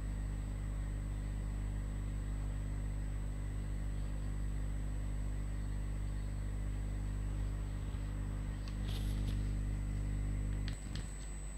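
A steady low electrical or mechanical hum of several low tones, which drops away suddenly near the end. A few mouse clicks come near the end.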